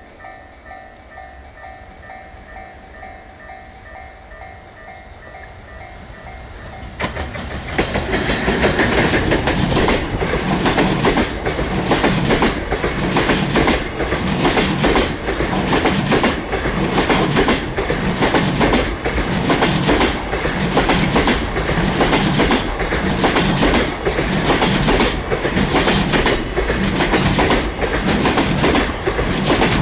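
Level crossing alarm ringing with a steady repeating tone. About seven seconds in, a JR Freight EF210 electric locomotive arrives loud and sudden, and a long train of container flat wagons passes at speed, its wheels clattering rhythmically over the rail joints.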